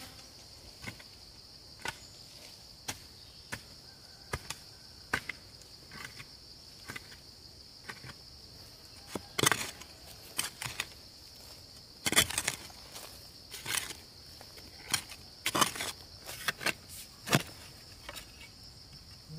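Sharp knocks or chopping strikes, spaced about once a second at first, then louder and bunched together in the second half, over a steady high chirring of insects.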